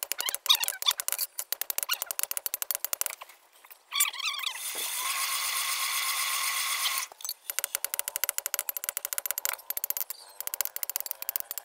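Hand hammer striking a red-hot iron blade on a small anvil block in rapid strikes, several a second. The hammering stops for a few seconds in the middle, when a steady high tone with a wavering pitch sounds for about three seconds, then the rapid strikes resume.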